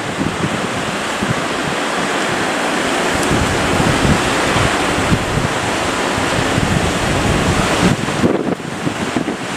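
Strong wind buffeting the microphone over the rushing noise of the sea, in gusts with no steady engine tone.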